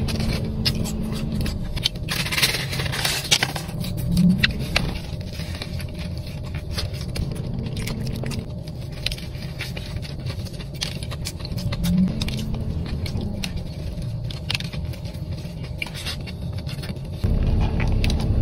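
Close-miked eating sounds of crispy fried fast food: crunchy bites and chewing, heard as many scattered sharp clicks over a steady low hum.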